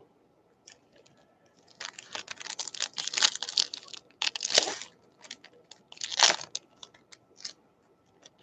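Wrapper of a Topps Opening Day baseball card pack being torn open and crinkled, in crackly bursts that are densest in the first half, with a last loud crinkle past the middle and a few small crackles near the end.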